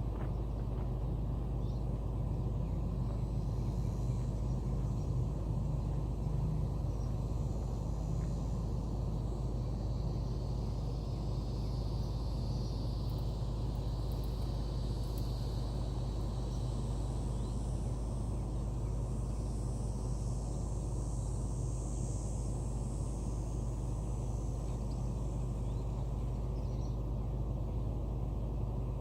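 Excavator engine running steadily with a low, even hum as the machine works its way down a rubble pile.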